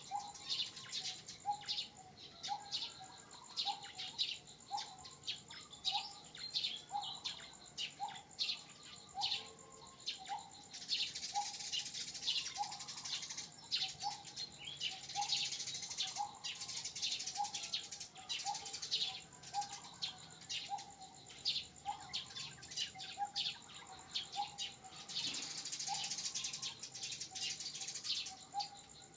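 Wild outdoor ambience of birds chirping over insects. A steady high insect whine runs under a low note repeated about every two-thirds of a second and many quick high chirps. Three times the insect sound swells into a longer hissing buzz.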